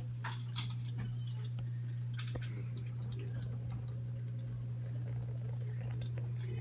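Aquarium filter running in a turtle tank: a steady low pump hum, with water dripping and trickling back into the tank in scattered small splashes.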